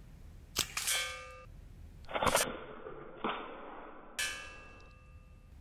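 Sig Sauer MPX Gen 2 .177 CO2 pellet rifle firing about four shots, each a sharp pop, two of them followed by a ringing metallic clang as the pellet strikes metal downrange.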